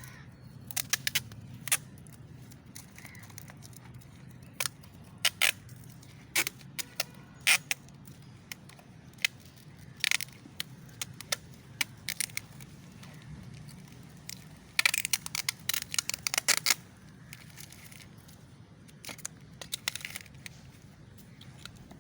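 Scattered sharp clicks and light rattles of small hard objects being handled, with a quick run of rapid clicks about fifteen seconds in, over a faint steady hum.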